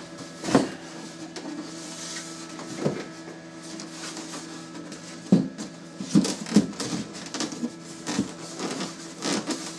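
A white plastic incubator lid and egg trays being handled and set in place: scattered knocks and clatter of plastic, several close together about six seconds in, over a steady low hum.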